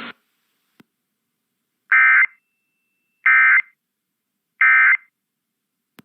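Emergency Alert System end-of-message signal: three short, identical buzzy bursts of SAME digital data tones, about 1.3 seconds apart, marking the end of an alert message.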